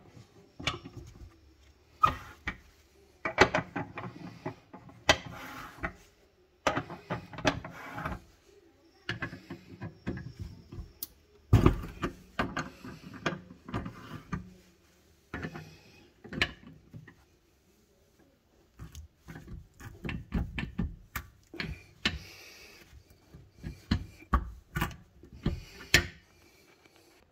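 Metal tools working the brass venturi nut of a Thermador gas range burner: repeated bursts of metal clicking and scraping as the nut is turned, separated by short pauses, with one sharp knock about halfway through.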